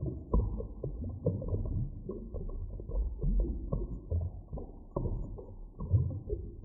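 Muffled underwater ambience: a steady deep rumble with frequent dull knocks and clicks and short creaking glides in pitch, with nothing bright or high in it.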